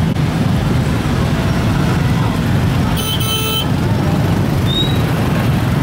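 Steady rumble of busy road traffic, with a short vehicle horn toot about three seconds in.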